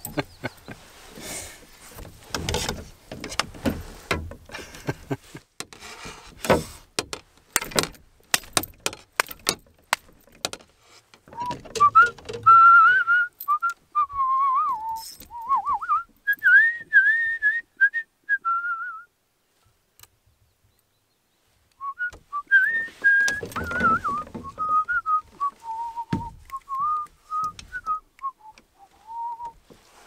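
A person whistling a wandering tune in two phrases, each several seconds long, with a short silence between them. Before the whistling starts, a run of sharp clicks and knocks.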